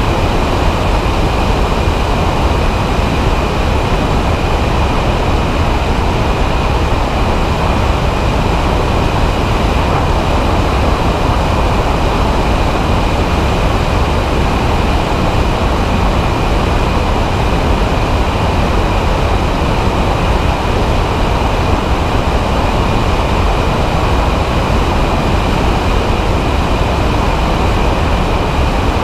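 Microlight trike's engine and pusher propeller droning steadily in cruise flight, under heavy wind rush on the wing-mounted microphone, with a faint steady high whine throughout.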